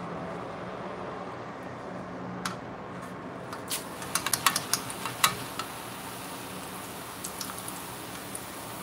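Hot oil sizzling steadily under a mesh strainer of flattened rice (chiura) being deep-fried, over a low hum. A quick run of sharp clicks and crackles about four to five seconds in as the dry flakes are tipped into the metal strainer.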